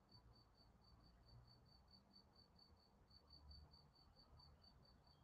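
Near silence: faint room tone, with a faint high-pitched pulse repeating about eight times a second.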